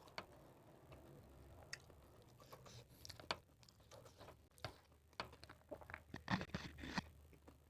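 A person chewing and biting food close to the microphone. Faint, irregular crunches and clicks come more often in the second half.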